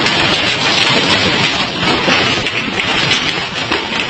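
Storm noise: heavy wind-driven rain and strong wind, a loud, steady rush.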